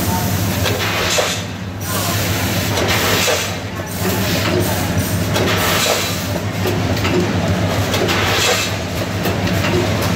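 Packaging line running: a tabletop chain conveyor and filling machine with a steady motor hum under continuous rattling clatter, swelling and easing every couple of seconds.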